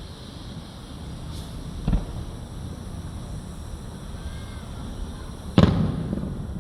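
Aerial fireworks shells bursting: a smaller boom about two seconds in, then a much louder boom near the end that rumbles on as it fades.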